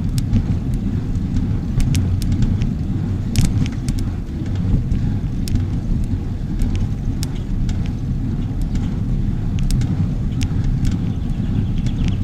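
Steady low rumble of wind on the microphone and tyres on the road while riding a bicycle, with scattered small clicks and rattles from the bike.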